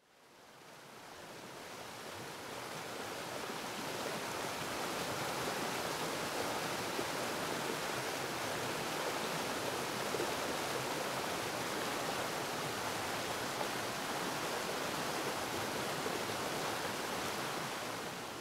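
Steady rush of a mountain stream's flowing water, fading in over the first few seconds and dropping away near the end.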